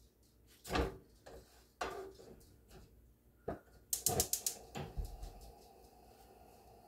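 A series of separate knocks and clicks, with a quick run of about six clicks around four seconds in.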